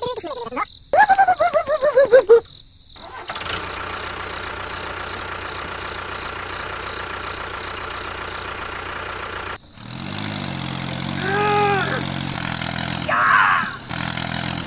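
An engine running steadily, then cutting off abruptly about ten seconds in and giving way to a lower, steadier engine hum. A quick series of falling chirps comes near the start, and a few short gliding tones near the end.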